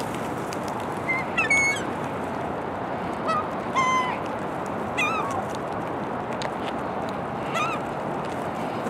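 Gulls calling while squabbling over food: about five short squawking calls spread across the few seconds, over a steady background hiss.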